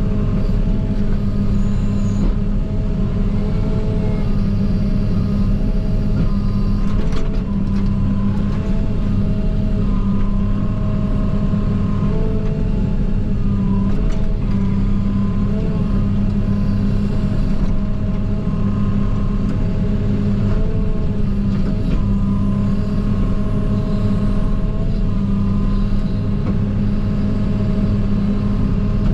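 JCB 48Z-1 mini excavator heard from inside the cab: its diesel engine running steadily under load, with a hydraulic whine that rises and falls in pitch as the controls are worked. A couple of short knocks about seven seconds in.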